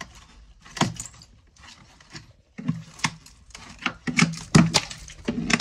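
Ice frozen to the wall of an ice-bath tub being struck and broken loose with a tool, giving hard knocks and cracks with chunks clinking. One knock comes about a second in, then a quicker run of knocks in the second half.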